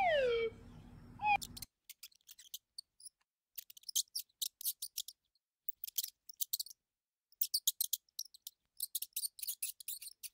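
A short falling call over a low hum, then a second brief call, both cut off about two seconds in. Then a pet rat crunching dry food: quick clusters of small, crisp clicks with short pauses between.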